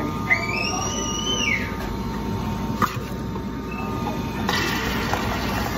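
Self-serve restaurant soda fountain being worked by hand: a short squeak that rises and falls about a third of a second in, a click near the middle, and about a second of dispensing hiss near the end, over a steady machine hum.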